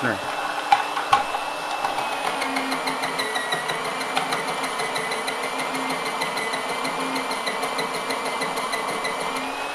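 Presto SaladShooter's small electric motor running with a steady high whine and a rapid fine chatter as it shaves a pencil, with two knocks about a second in. Its pitch sags a little under the load from about three seconds in and picks back up near the end.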